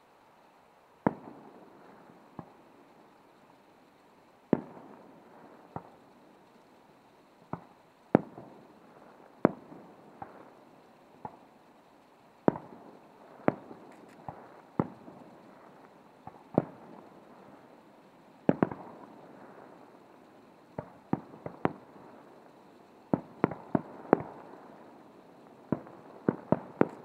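Fireworks bursting in the sky: a long string of sharp bangs at uneven intervals, each trailing off in a short echo, coming thicker and faster near the end.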